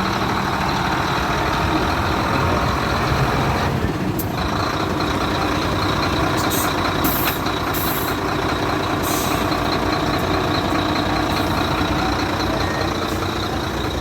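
Howo 340 concrete mixer truck running, with its rear reversing alarm sounding steadily, an alarm the crew says talks and sounds like an odong-odong kiddie ride. Short air hisses come about four seconds in and a few more a little later.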